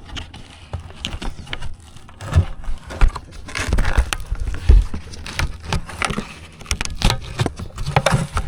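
A lidded plastic paint bucket being handled and its lid pried open: irregular knocks, scrapes and snaps, with the handheld camera rubbing and knocking.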